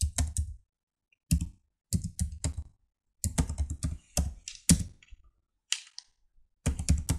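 Computer keyboard typing in short bursts of keystrokes separated by brief pauses.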